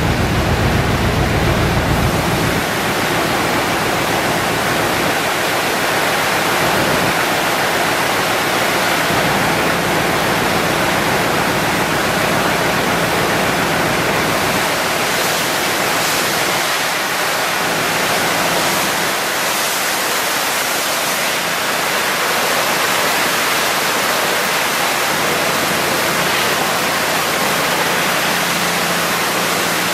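Liquid gushing out of a vacuum truck tank's rear discharge hose and splashing onto concrete and into a floor drain: a steady, loud rushing. A faint low hum runs underneath.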